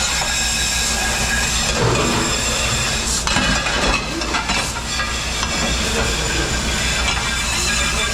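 Commercial dish pit at work: a dish machine hums and hisses steadily, with scattered clinks of dishes and utensils.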